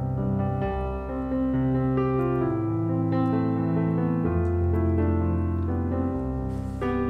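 Background piano music: slow, held chords over a low bass line.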